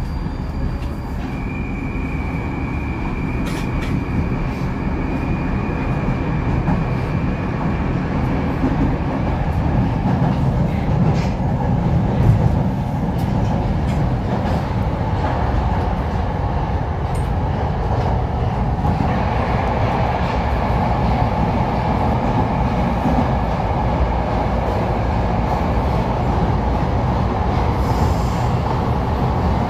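Moscow metro 81-775/776/777 train running at speed, heard from inside the car: a steady rumble of wheels and running gear that grows a little louder over the first dozen seconds. A thin high whine sounds for several seconds near the start.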